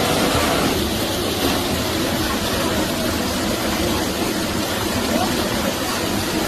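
Steady rush of river water churning in a traditional Romanian whirlpool washing tub.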